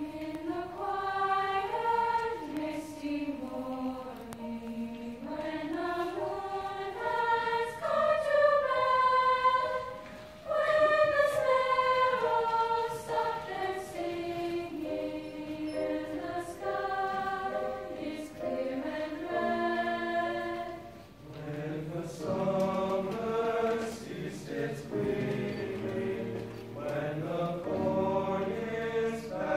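Mixed choir singing: the high voices carry a single melody line at first, and lower men's voices join with a second part about three-quarters of the way through.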